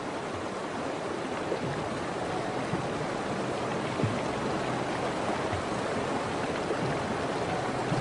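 Fast river water rushing steadily as bison wade and swim across the current, with a faint knock about four seconds in.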